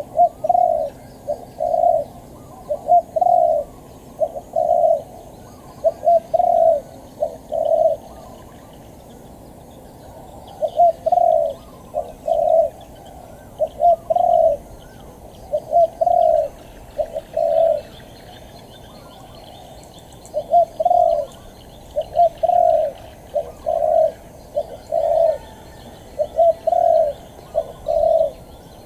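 Spotted dove cooing: short phrases of a few soft notes repeated every couple of seconds, with a pause of about two seconds a third of the way in and another about two-thirds of the way in.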